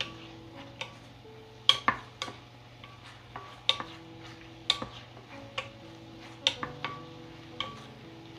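Wooden spatula stirring and knocking against a stainless steel pan of bubbling syrup and chopped nuts: sharp clacks at an uneven pace, about one every half second to a second, over light background music.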